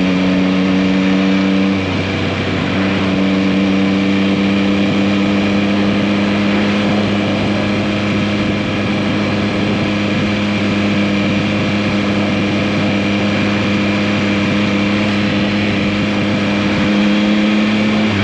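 2021 Yamaha MT-09's 890 cc inline three-cylinder engine running under way at a nearly steady engine speed, its note rising slowly. The note breaks off briefly about two seconds in, then picks up again at the same pitch. A steady rush of noise runs beneath it.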